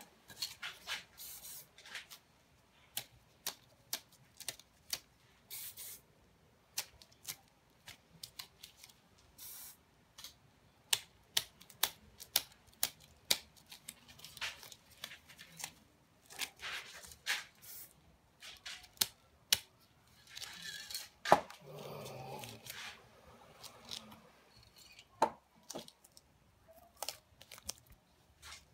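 Spray paint cans hissing in many short bursts, mixed with sharp clicks and paper rustling and tearing, with a longer rustle about two-thirds of the way through.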